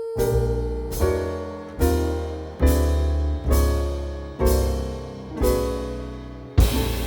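Background music: a piano or keyboard strikes a series of chords about once every 0.8 s, each ringing and fading, and fuller band accompaniment comes in near the end.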